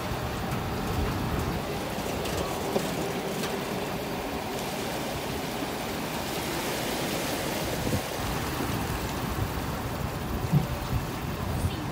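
Steady rushing noise, like water and wind, over a low rumble, with a few faint knocks.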